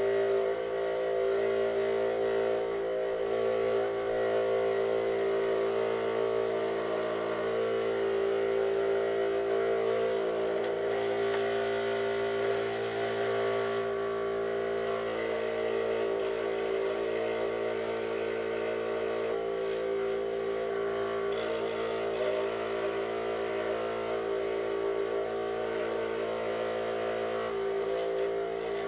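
Benchtop scroll saw running at a steady speed, its blade cutting thin 5 mm plywood as a piece is fed through; an even, unbroken machine drone with a constant pitch.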